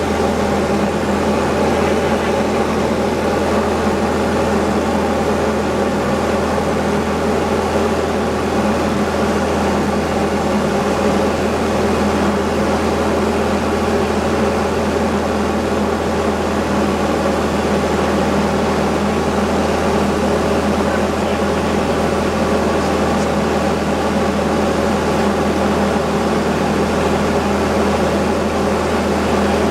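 Diamond DA20-C1's four-cylinder Continental engine and propeller running at a steady, unchanging drone.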